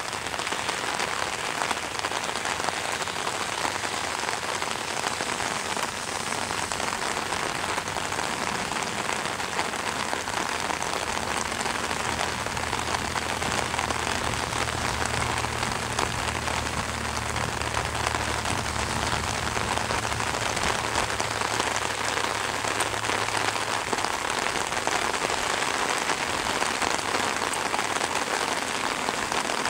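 Steady rain falling over an open grassy field, an even hiss that keeps going without a break. A low hum sits under it for about ten seconds in the middle.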